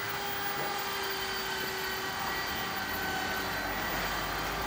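Two-post vehicle lift running as it is lowered a little, a steady mechanical whine with several held tones over a hum, the low rumble growing near the end.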